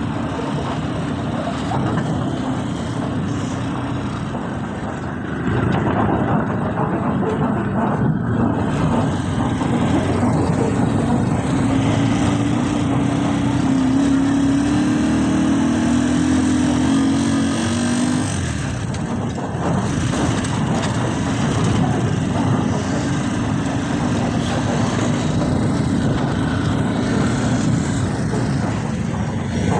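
Small motorcycle-rickshaw engine running while driving along a rough road. Its note goes up and holds higher for several seconds around the middle, then drops back.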